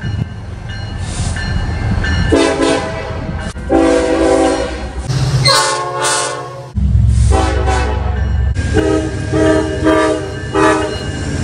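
Diesel locomotive air horns blowing as trains pass: several long blasts, one from a different, higher-sounding horn, then a run of short blasts, over the low rumble of the locomotives. The sound changes abruptly between passes.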